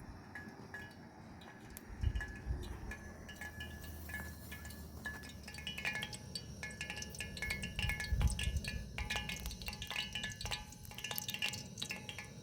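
Light tinkling chimes: many small clinks with short ringing tones, sparse at first and much busier from about four seconds in. A low rumble and a couple of dull thumps sit underneath.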